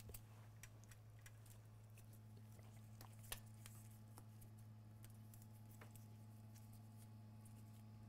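Near silence: a low steady hum with a scattering of faint clicks, the clearest a little over three seconds in.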